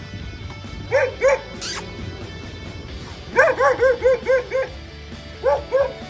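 A dog barking in short bouts: two barks about a second in, a quick run of about seven barks a few seconds in, then two more near the end.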